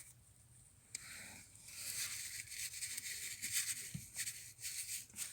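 Cloth rag rustling and rubbing, with a few light clicks.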